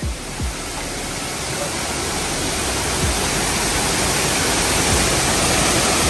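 Waterfall, several streams plunging onto rocks: a steady rush of falling water that slowly grows louder.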